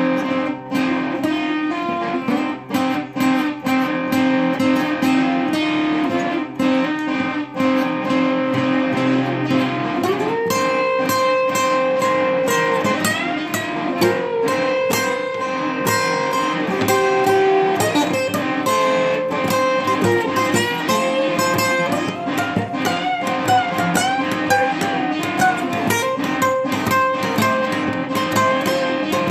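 Acoustic guitar playing an instrumental piece of layered, looped guitar parts: plucked notes over held chords, with notes gliding up in pitch around ten seconds in.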